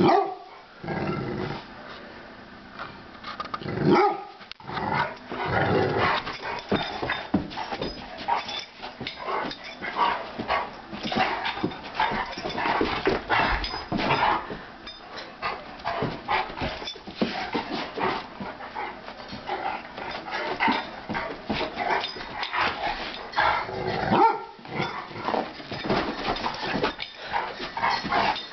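Two dogs, a Rottweiler among them, play-fighting, with growling and barks that come and go irregularly, in louder bursts here and there.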